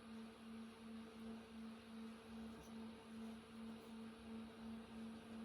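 A faint, steady low hum that swells and fades about twice a second.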